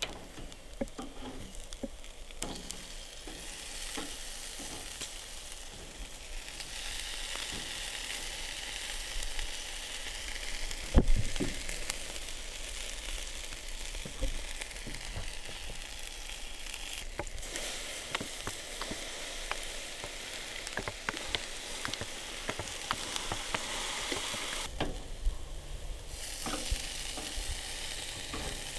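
Steak sizzling as it grills: a steady frying hiss with scattered pops, stronger after the first few seconds, and one loud knock about eleven seconds in. The sizzle drops out briefly twice in the second half.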